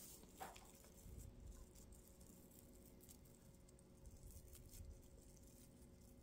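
Near silence with faint, scattered rustles and ticks of metallic tinsel pipe cleaners being bent and twisted by hand, over a faint steady hum.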